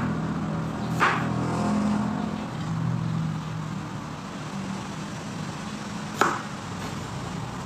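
Chef's knife cutting through cauliflower onto a wooden chopping board, with sharp knocks about a second in and again near the end. A low steady hum fades out during the first few seconds.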